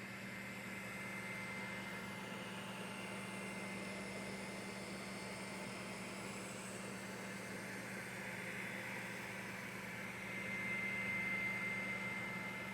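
Creality CR-M4 3D printer running, with a steady fan hum and a thin high whine from its stepper motors. The whine and overall level swell for a couple of seconds near the end.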